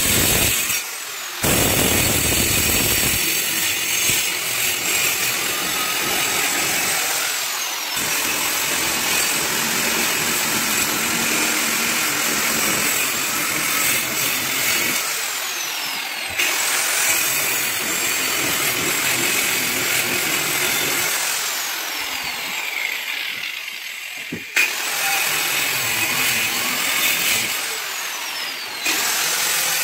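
Handheld electric wall-cutting tool running as it grinds a groove into a brick wall. Its high whine drops in pitch several times, and it eases off briefly about a second in and again near the last quarter.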